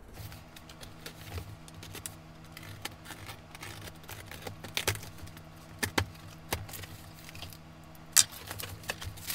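Cardboard shipping box being opened by hand: scattered scratches, scrapes and crackles as the packing tape is picked open and the flaps are pulled back, with one sharp crackle about eight seconds in. A steady low hum runs underneath.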